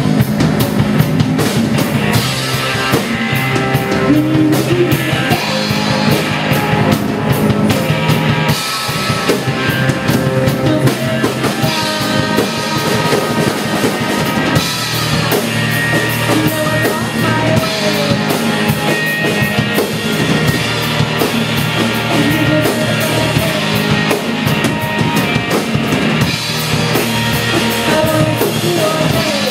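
Live rock band playing loudly, with a pounding drum kit and electric guitar; a singer comes in at times.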